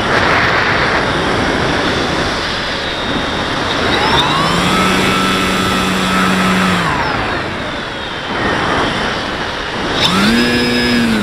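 Onboard audio of an FPV model aircraft in flight: steady rushing airflow over the camera, with the motor and propeller whine rising, holding and falling away twice as the throttle is opened, about four seconds in and again near the end.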